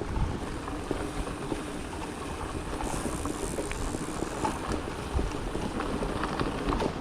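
Bicycle tyres rolling over a packed dirt road, a steady crackling rush, with wind blowing over the microphone.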